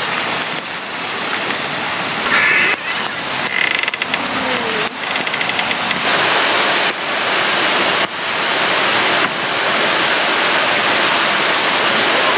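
Steady hiss of falling rain mixed with a rushing stream, with several sudden brief dips.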